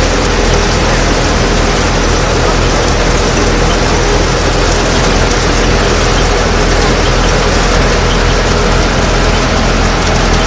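Tractor-driven threshing machine running steadily as it threshes pearl-millet stalks, a loud, even machine noise with the Fiat 480 tractor's engine humming underneath.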